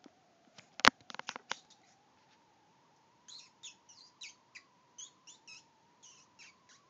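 A few sharp clicks and taps in the first couple of seconds, the loudest about a second in. Then a small caged pet bird chirps in short, quick high notes, about three a second, over a faint steady whine.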